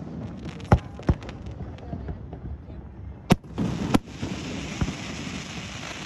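Aerial fireworks shells bursting: four sharp booms, two about a second in and two more a little past three seconds, with a steady hiss after the last one.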